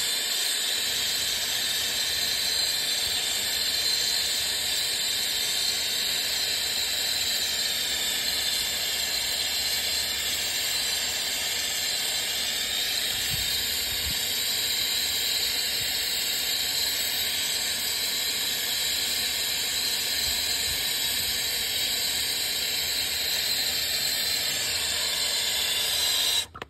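Steady hiss that cuts off abruptly near the end.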